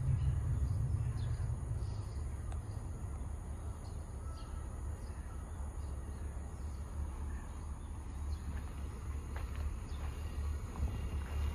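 Outdoor background: a steady low rumble with faint, scattered bird chirps.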